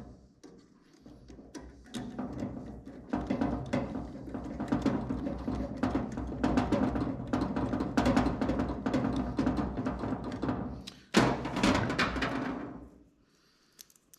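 Background music with a steady drum beat, ending about a second before the end.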